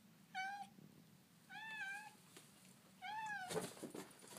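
Orange tabby cat meowing three times, short wavering calls about a second and a half apart, with some rustling near the end.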